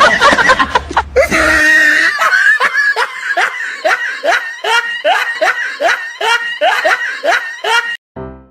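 A person laughing hard in a long run of short bursts, about two or three a second. A loud jumble of sound comes before it, and it cuts to piano notes near the end.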